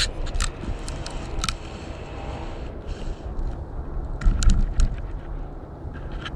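Footsteps in dry leaves and twigs: scattered sharp crackles and snaps, with a few dull thumps about four seconds in.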